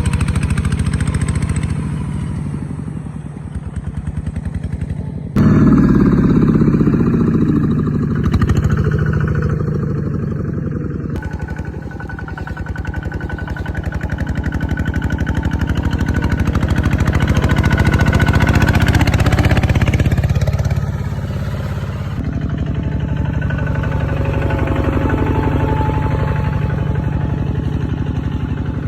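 Kubota ZT140 single-cylinder diesel engine running with a rapid, even chugging. The sound jumps abruptly in loudness and tone about five, eleven and twenty-two seconds in.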